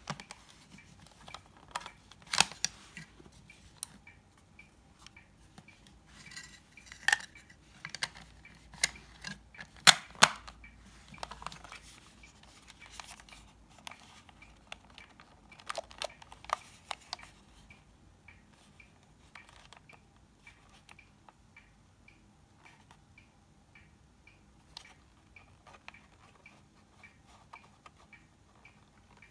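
Sharp plastic clicks and knocks from a Casio TV-880 pocket LCD colour TV being handled and switched on, most of them in the first half. Under them runs a faint, steady, even ticking like a clock.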